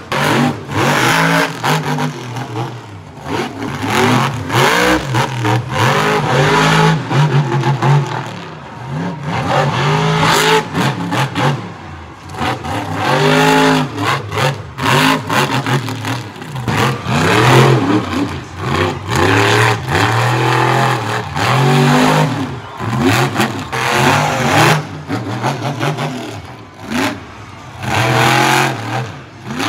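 Monster truck engines revving hard in repeated bursts, the pitch sweeping up and falling back again and again as the trucks accelerate and lift off the throttle.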